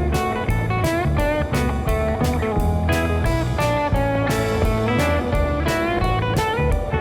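Background music: a blues-style electric guitar playing bending, sliding lead lines over a steady bass and drum beat.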